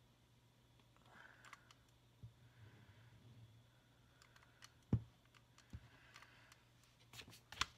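Hot glue gun dispensing glue onto cardstock: faint clicks of the trigger and nozzle, with one sharper click about five seconds in and a few more near the end.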